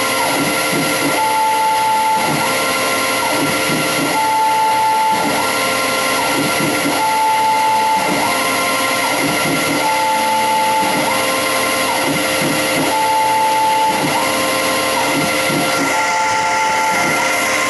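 CNC-converted Grizzly G0602 lathe running with the spindle turning and a steady motor whine, while its stepper drive cycles over and over: a level whine, then a step up in pitch that holds and drops back, repeating about every three seconds as the carriage makes repeated threading passes.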